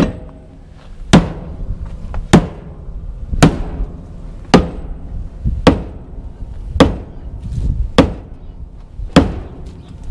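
Sledgehammer blows striking a stuck tractor-size wheel on a forage chopper to knock it loose, nine heavy strikes at a steady pace of about one a second, each with a short ring.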